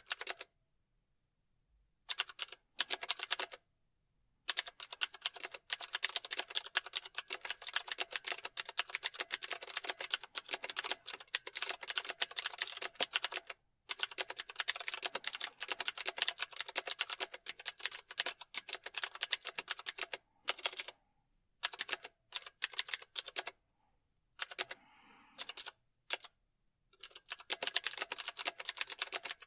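Typing on a computer keyboard: rapid runs of key clicks broken by short pauses, with a silent gap of about two seconds at the start, long unbroken stretches in the middle, and more stop-and-start typing a little after twenty seconds in.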